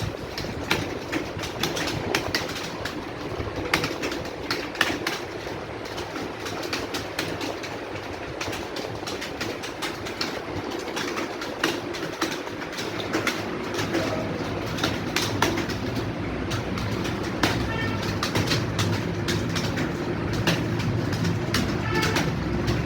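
Many computer keyboards typed on at once: a dense, irregular clatter of key clicks from a room full of typists. A low hum comes up about halfway through.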